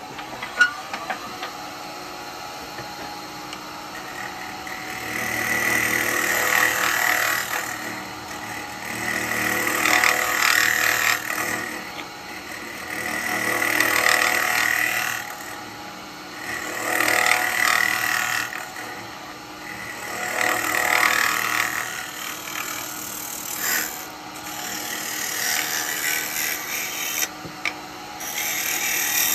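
Wood lathe running with an alder cauldron blank spinning in the chuck. A hand-held turning tool cuts the inside bottom in repeated passes: a rise and fall of cutting noise about every three to four seconds, starting a few seconds in.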